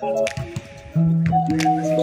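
Background music of held chords, louder from about a second in, with a few short clicks or taps over it.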